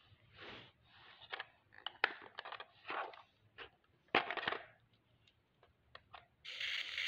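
Handling noises from a small remote-control toy car and its handheld controller on a rug: short scrapes, rustles and sharp clicks at irregular intervals. A steady noise starts near the end.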